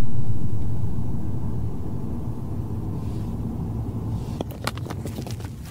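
Low rumble of a car on the move, heard from inside the cabin, loudest at the start and easing off over the first two seconds. A few sharp clicks come near the end.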